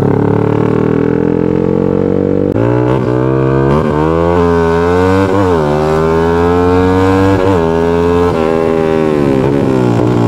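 Big-bore (68 mm) Yamaha Exciter single-cylinder four-stroke under hard acceleration, the engine pitch climbing with brief dips at the gear changes. Near the end the throttle is eased and the pitch falls as the bike slows.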